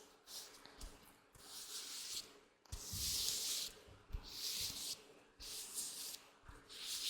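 Latex gloves rubbing close to the microphone in several separate hissy strokes of up to a second each, with short pauses between them.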